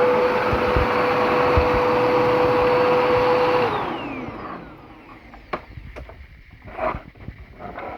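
Bissell 2161e vacuum cleaner running with a steady motor whine, then switched off about three and a half seconds in, its motor spinning down with a falling pitch. A few light clicks and knocks of handling follow.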